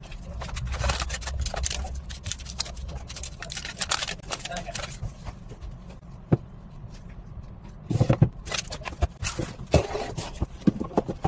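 Handling noise of a phone box being unpacked: cardboard and packaging scraping and rustling, with scattered clicks and taps as the box parts and the phone are handled. A single sharp click comes about six seconds in, and a louder run of clicks about eight seconds in.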